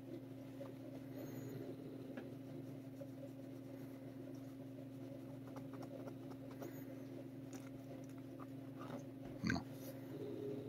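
Faint low growling from a fearful feral cat as it is stroked with a leather glove, over a steady low room hum, with one short louder sound about nine and a half seconds in.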